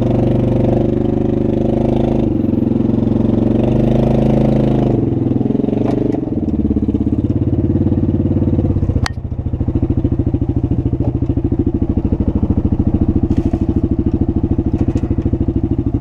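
Yamaha Wolverine side-by-side's engine running at higher revs as it works over a slickrock ledge. About five seconds in the revs drop, and it settles to a steady, evenly pulsing idle, with one sharp click about nine seconds in.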